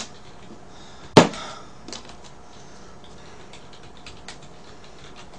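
A sharp knock about a second in, then light scattered clicks and taps of a knife against the cake board as a cake is cut.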